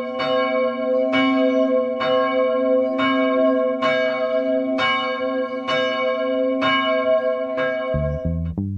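Church bell tolling, struck about once a second with each stroke ringing on into the next. Low music comes in near the end.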